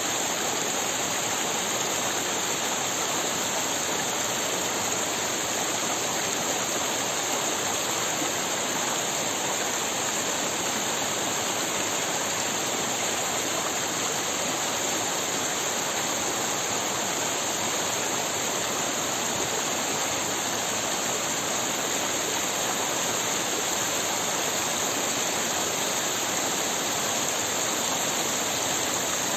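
Small mountain stream rushing and splashing over rocks and little cascades, a steady, unbroken sound.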